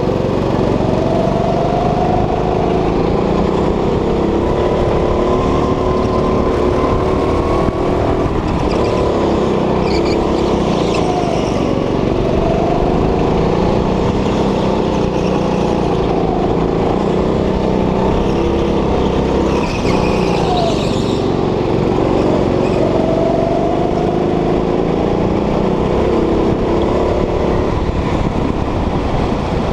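Go-kart engine under way, heard from the driver's seat, its pitch rising and falling as the kart speeds up and slows for corners, over a steady low rumble. Brief high-pitched squeals come twice, about ten and twenty seconds in.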